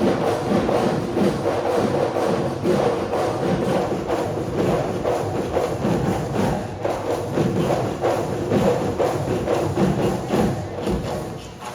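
Bihu folk music with drums and clapping hand percussion playing in a steady rhythm, with a held tone running through it.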